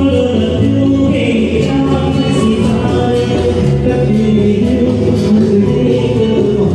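A live band playing: sustained keyboard chords over a drum kit, with light, regular cymbal strokes.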